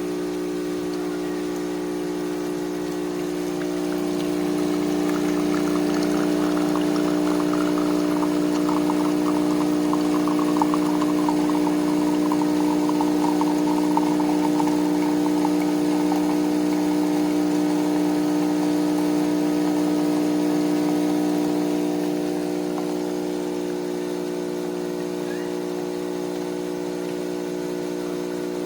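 De'Longhi ESAM3300 Magnifica super-automatic espresso machine brewing: its pump hums steadily while coffee streams into a cup, louder from about four seconds in until about twenty-two seconds.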